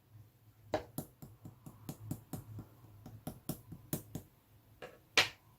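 Slime being kneaded and pressed by hand, giving a string of sharp little clicks and pops, two or three a second, with one louder pop about five seconds in.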